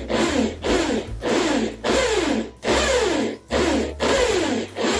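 Corded electric drill boring through an aluminium flat bar for a rivet hole, run in repeated short bursts about every half second, its pitch dropping within each burst.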